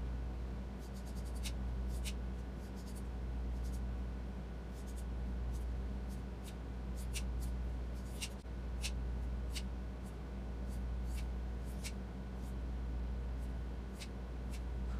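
Scissors snipping through hair: about a dozen short, crisp snips at uneven intervals. Under them runs a steady low hum.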